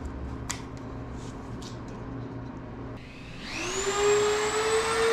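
A few faint handling clicks, then a Dremel rotary tool with a thin metal cut-off wheel switched on about three seconds in, its motor whine rising quickly in pitch and settling into a steady high whine at full speed.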